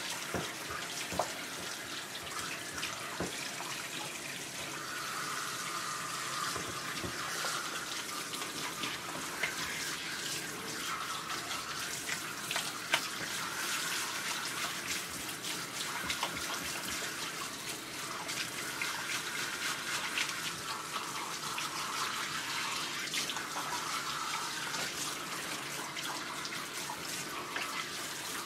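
Water spraying from a hand-held hose nozzle as a wet Maltese is rinsed in a bathtub: a steady hiss of spray with scattered small splashes and drips.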